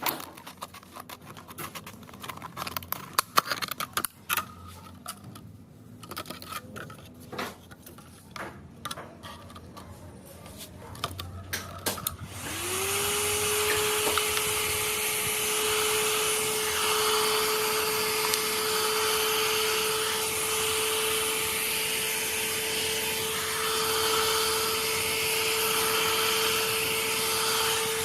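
Scattered light clicks and taps of handling, then about twelve seconds in a small electric motor tool spins up quickly and runs at a steady pitch with a whirring hiss.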